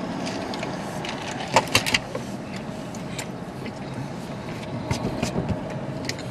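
Steady hum of a car's cabin, with a few sharp clicks and knocks from handling about a second and a half in and again near the end.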